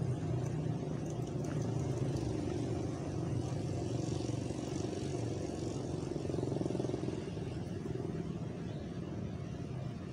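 Steady rumble of road traffic, with motor vehicle engines running and passing.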